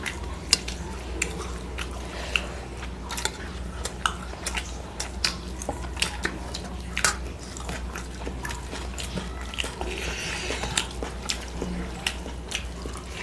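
Close-up sounds of eating rice and curry by hand: chewing and lip smacks with many irregular sharp clicks as fingers mix rice on steel plates, over a low steady hum.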